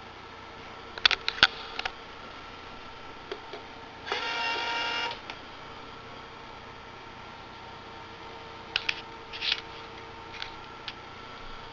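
A brief electric-motor whine of about a second from the home-built azimuth-elevation antenna rotor, about four seconds in. Sharp clicks fall about a second in and again near the end, over a faint steady hum.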